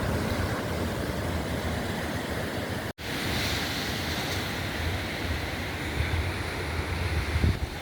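Sea surf washing steadily onto the beach, with wind rumbling on the microphone. The sound cuts out for an instant about three seconds in.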